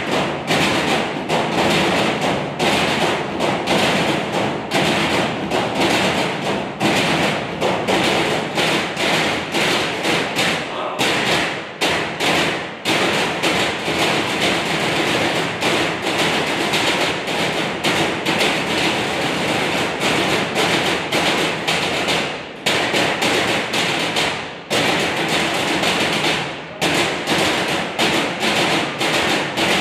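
A group of drummers beating a rhythm on galvanized metal trash cans and plastic bins: a dense, steady stream of strikes with a few brief breaks.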